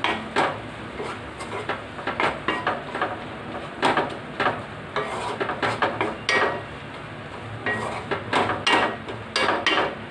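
Spatula stirring amaranth leaves and onions in a nonstick wok: irregular scrapes and knocks against the pan, about two a second, over a faint sizzle of frying.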